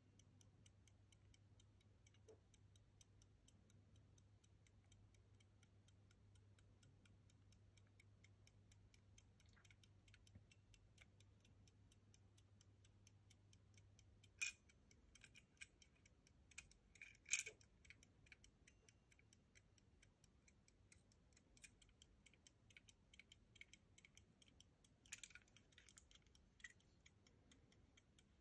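Faint, rapid, even ticking of a late-17th-century verge fusee pocket watch running, with a few louder clicks from the case being handled about halfway through.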